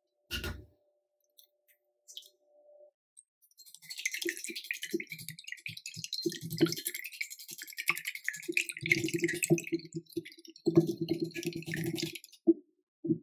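Small wire whisk beating eggs in a ceramic bowl: fast, continuous clicking as the wires strike and scrape the bowl, starting a few seconds in and stopping near the end. A single knock comes just at the start.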